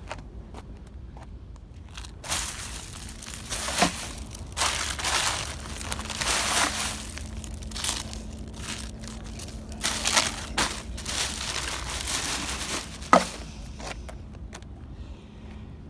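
Clear plastic bag crinkling and rustling in a series of bursts as litter is stuffed into it by hand, with two sharp knocks, one about four seconds in and one near the end.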